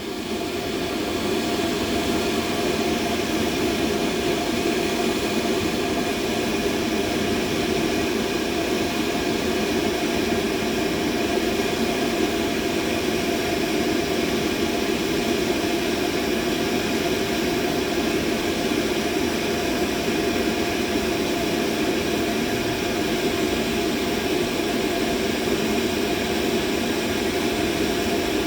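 Steady mid-pitched machine noise, an even rushing hum strongest in its middle range with faint steady tones above it. It comes back up from a brief dip in the first second, then holds unchanged.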